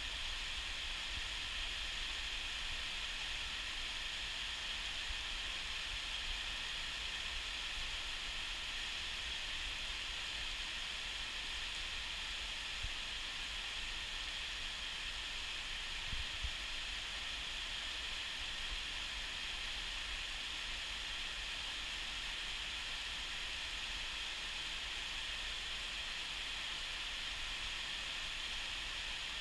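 Steady rain falling on a town, an even, unbroken hiss.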